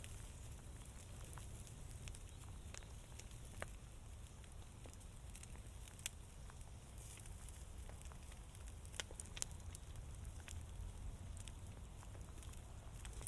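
Fire crackling, with a handful of scattered sharp pops over a faint steady hiss and low rumble.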